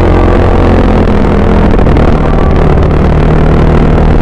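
Yamaha Mio Sporty scooter's single-cylinder four-stroke engine, stock with a 28mm Keihin carburettor, running steadily under way on the road.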